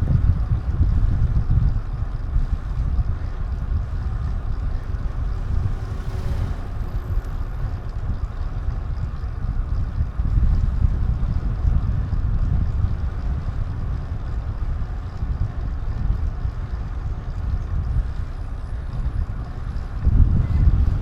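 Wind buffeting the action camera's microphone while riding: a steady low rumble that swells and eases, with no clear engine note.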